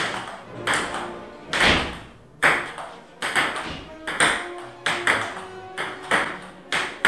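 Table tennis rally: a celluloid ball clicking back and forth off the paddles and the table top, about two hits a second, each with a short ringing tail.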